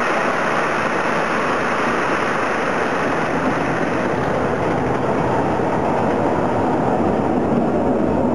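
Wooden roller coaster train, Magnus Colossus, running along its wooden track: a steady rumble that grows deeper and fuller over the second half.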